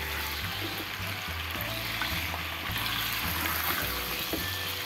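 Sliced potatoes sizzling in hot oil in a pot as they are stirred with a wooden spoon, with a few light spoon knocks. Background music with a deep, repeating bass line plays over it.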